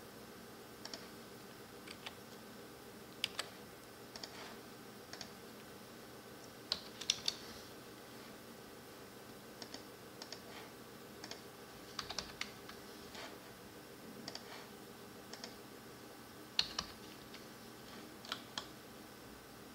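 Computer keyboard keys and mouse buttons clicking in scattered single presses and short clusters, over a faint steady hum.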